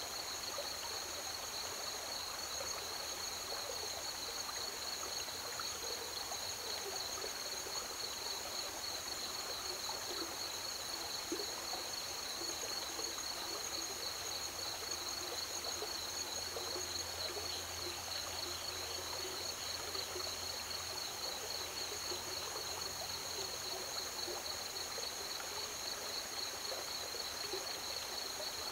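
Pedernales River water running steadily, with a cricket chorus keeping up two continuous, high pulsing trills over it.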